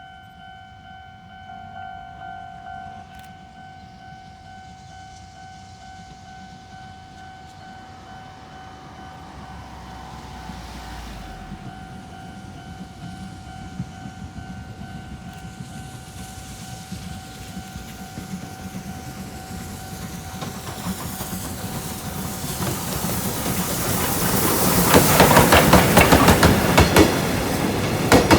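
Chichibu Railway steam train approaching and passing close by: the rumble grows steadily louder, ending in a loud, fast clatter of wheels over the rail joints in the last few seconds. A steady high ringing tone sounds through the first two-thirds and then fades under the train.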